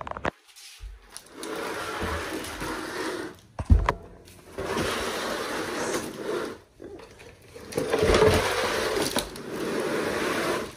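A small electric motor, running in three bursts of two to three seconds each with short stops between. There is a sharp knock about a third of the way through.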